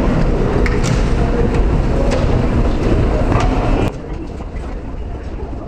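Subway station walkway ambience: footsteps on a hard floor ticking every half second or so over a steady crowd hum. About four seconds in, the sound drops suddenly to a quieter, muffled rumble where the footage is fast-forwarded on the escalator.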